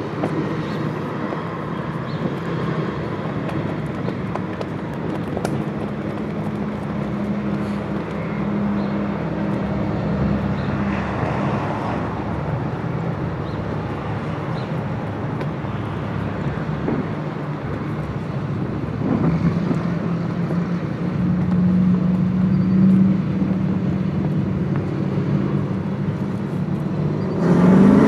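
Dirt-track race car engines running practice laps at a distance, a steady drone that swells and fades as the car goes around the oval. Near the end the cars come close and the engines turn suddenly louder, rising in pitch as they accelerate.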